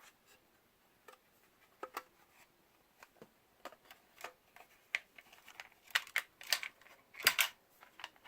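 Small clicks and taps of hands handling small hard parts, screws and tools: sparse at first, coming more often over the last three seconds, with the loudest pair of sharp clicks near the end.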